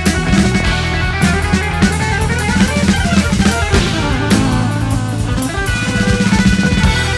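1970s progressive rock band playing: a drum kit with bass drum and snare keeps a steady beat under bass and electric guitar.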